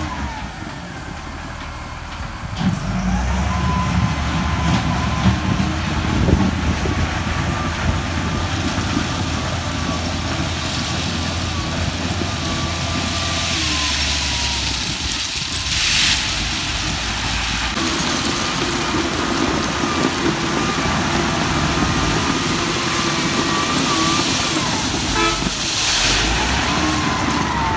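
LiuGong wheel loader's diesel engine working hard under load, revving up a few seconds in with a whine that rises and falls with the revs. Crushed rock rattles briefly in the bucket twice, about two-thirds in and near the end.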